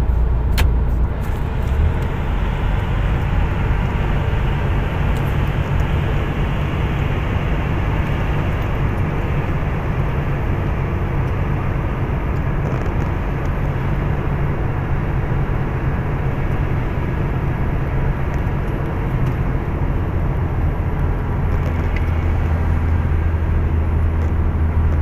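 Inside a truck's cab: the diesel engine drones steadily under engine braking on a long downhill, with tyre and road noise. A deeper drone grows stronger near the end.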